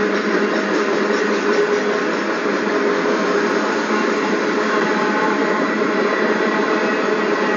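Freight train cars rolling past on the rails: a steady, even rolling noise with a few faint held ringing tones in it.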